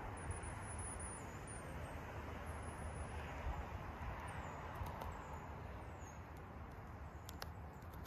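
Steady low outdoor rumble, with faint high thin wavering notes above it and a few short sharp taps about seven seconds in, the sound of a female downy woodpecker pecking at a suet cake.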